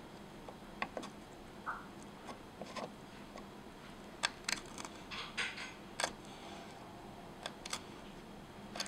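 Small knife cutting on a tiny wooden cutting board: irregular sharp clicks and taps as the blade slices through soft food and strikes the wood, busiest around the middle.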